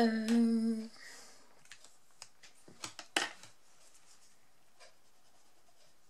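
A woman hums one short steady note, about a second long. A few light clicks and taps follow as felt-tip markers are handled and laid on the cutting mat, the sharpest about three seconds in.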